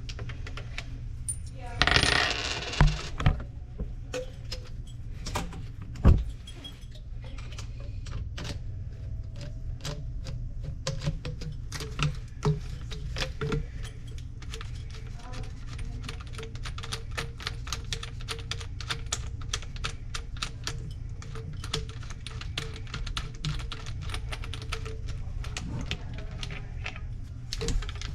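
Hand work on a sink drain: many small metallic and plastic clicks and clinks of tools and drain parts being handled, with a short scraping burst about two seconds in and a few louder knocks, over a steady low hum.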